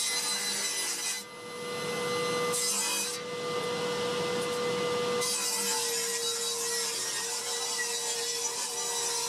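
Table saw running with a steady whine as its blade rips a painted wooden board lengthwise. The cutting noise comes and goes, dropping out about a second in and again around three seconds, while the motor whine carries on.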